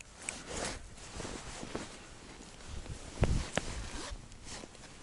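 Jacket rustling and small clicks of hands handling a perch and the jig over an ice hole, with a dull thump about three seconds in.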